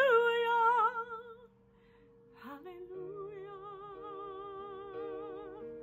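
A woman singing solo with vibrato over sustained backing chords. A held note trails off in the first second and a half, and after a short quiet gap a softer wordless note with vibrato begins.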